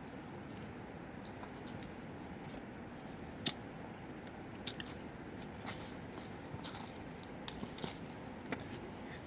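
Scattered crunches and clicks over a steady hiss, the first sharp one about three and a half seconds in, more frequent toward the end.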